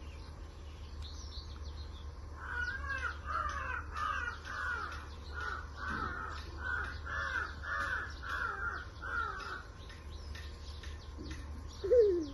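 A crow cawing in a run of about ten calls in quick succession, with small birds chirping faintly throughout. Near the end comes a single brief, loud falling sound.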